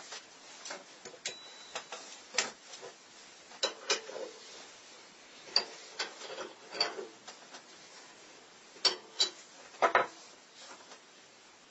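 Irregular sharp clicks and light knocks, about a dozen, from small tools and a workpiece being handled on a workbench, with a few louder knocks near the end.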